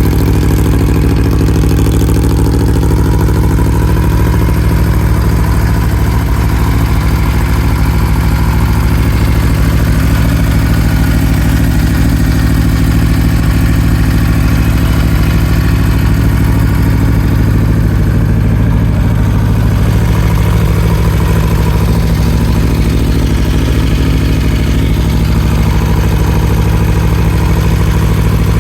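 Aprilia Tuono V4 motorcycle's V4 engine, fitted with an HP Corse aftermarket silencer, idling steadily and loudly.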